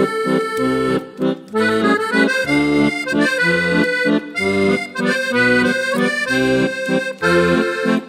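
Instrumental background music: a tune of held notes and chords that change every half second or so.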